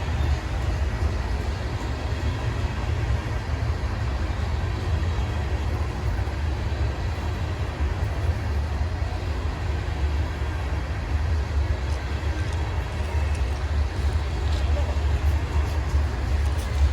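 Norfolk Southern manifest freight train rolling past, a steady low rumble, with a few faint clicks near the end.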